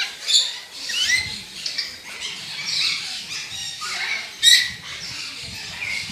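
Many high-pitched animal chirps and squeaks overlapping, some sliding upward, with one loud sharp call about four and a half seconds in.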